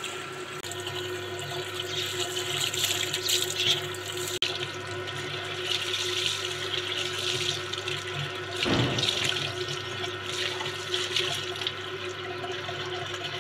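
Water gushing from a hose and splashing onto a concrete floor as hands are rinsed under it. A steady hum from the electric water pump motor that feeds the hose runs underneath.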